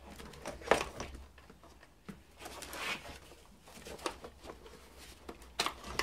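Handling noises: scattered clicks and knocks with rustling as plastic engine parts and wiring are worked by hand around the throttle body of a BMW M52TU engine, the sharpest knock coming just under a second in.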